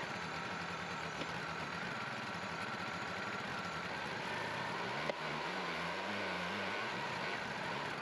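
Wood-Mizer LT40 sawmill engine running steadily. About five seconds in there is a sharp knock, and the engine note wavers for a couple of seconds as the mill's hydraulic loader lifts a log onto the bed.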